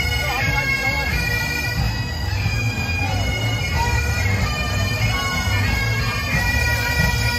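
Bagpipes playing a tune over a steady drone, with a low rumble underneath.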